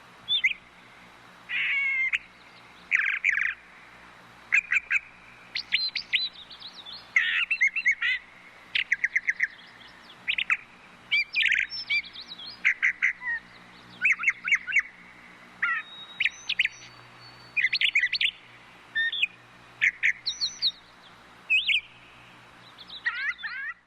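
Brown thrasher (the bird once called brown thrush) singing: a long series of short, varied phrases of quick high notes, many notes repeated within a phrase, with brief pauses between phrases.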